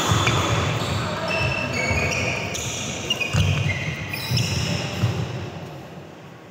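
Badminton doubles rally: rackets striking the shuttlecock, shoes squeaking on the court surface and footfalls thudding as the players lunge and run. It goes quieter near the end as the rally stops.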